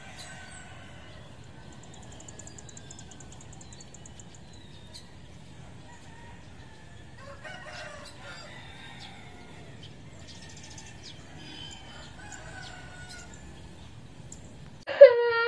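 Roosters crowing faintly over a low steady rumble, with calls standing out about halfway through and again a few seconds later. Just before the end, a child's loud wailing cry starts suddenly.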